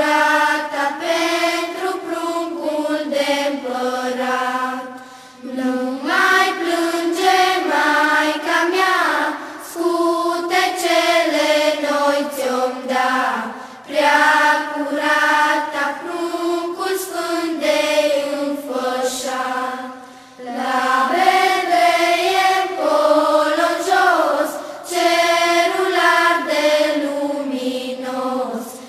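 Group of children singing a Romanian Christmas carol (colindă) unaccompanied and in unison, in sung phrases with a short pause for breath every few seconds.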